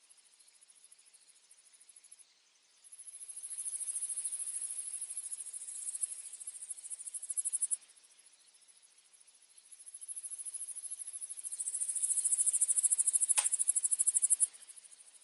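An insect trilling in a very high, fast-pulsed buzz, in two long bouts of about five seconds each that swell and then stop. A single sharp click sounds a second or so before the second bout ends.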